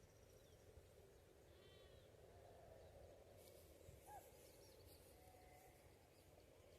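Near silence: faint ambience with a few brief, distant animal calls.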